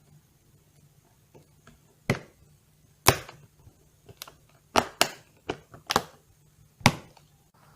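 Plastic back cover of a Nexus 5 being pressed onto the phone, its clips snapping into place: a series of about eight sharp clicks at uneven spacing, the loudest about three seconds in and near the end.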